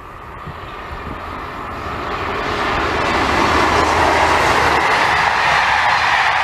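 SNCF BB 22200 electric locomotive hauling a rake of Corail coaches past at line speed. The wheel-on-rail noise grows louder over the first few seconds as the train approaches, then holds steady as the coaches roll by.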